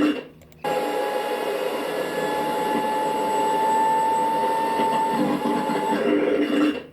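Vacuum cleaner motor running steadily with a high whine. The sound cuts out briefly just after the start, then resumes and runs evenly.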